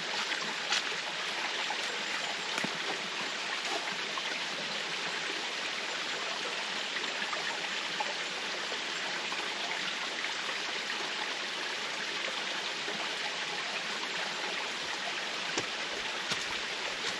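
Small stream of water running steadily with an even rushing sound.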